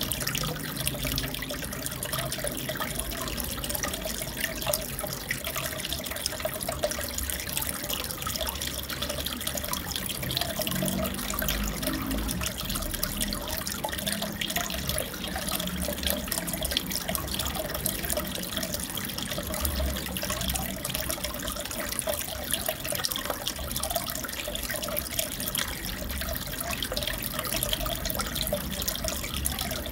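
Aquarium water trickling and bubbling steadily, with fine continuous drips and splashes.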